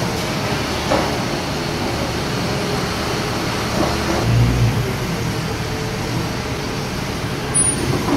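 Diesel engine of a Komatsu 16-ton forklift running steadily as the forklift works its forks into steel fork extensions. There is a brief low thump about four and a half seconds in.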